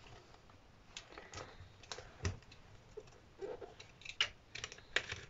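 A 12-by-12-inch paper pad being handled and opened: scattered light taps and rustles of its card cover and sheets, with a few sharper clicks near the end.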